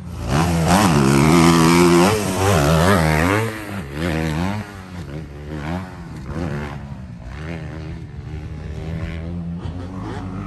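Two-stroke motocross bike engine revving hard and dropping back again and again as it is ridden round the track. It is loudest over the first three seconds or so and lower after that.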